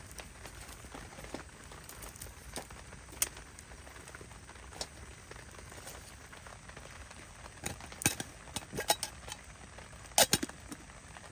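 Campfire of rain-soaked firewood crackling, with scattered sharp pops and a few louder ones near the end, over a steady hiss of heavy rain.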